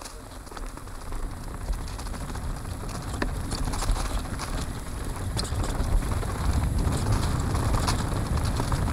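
Downhill mountain bike rolling fast down a dirt trail: tyres crunching over dirt and dry leaves, with a low wind rumble, and the bike rattling and clicking over the bumps. The sound grows louder through the first few seconds as the bike picks up speed.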